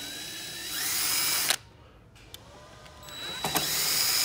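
Cordless drill/driver backing out two long screws that hold the heater's fan and heating element to its sheet-metal base, the motor whining and rising in pitch as it spins up. It runs, stops abruptly about a second and a half in, then starts again about three seconds in for the second screw.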